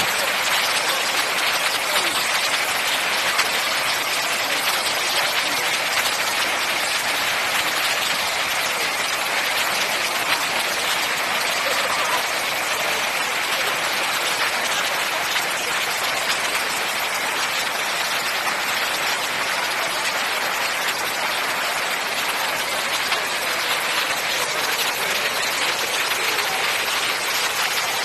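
Water pouring steadily down a salt waterfall, an unbroken hiss-like rush with little low rumble.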